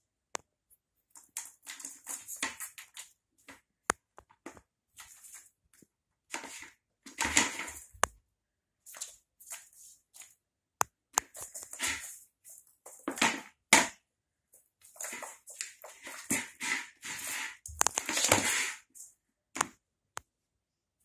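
Cat scratching and pawing at the plastic grid of an empty litter tray: irregular bursts of scratching with sharp clicks, loudest about a third of the way in and again near the end.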